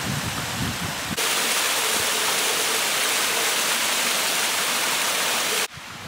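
Mountain stream cascading over rocks. A quieter rush of water with low thumps comes first. About a second in there is an abrupt jump to a loud, steady rush of falling water, which cuts off suddenly near the end.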